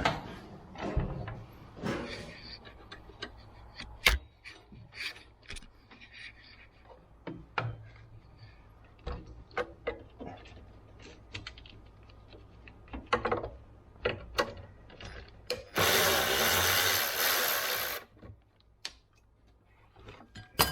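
Hand tools working on metal bolts: scattered clicks, taps and ratcheting, with one sharp knock about four seconds in. Near the end comes a steady two-second burst of noise.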